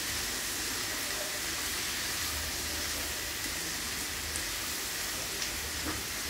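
Diced bottle gourd sizzling steadily as it sautés in oil in a non-stick pan while being stirred, with a few faint clicks.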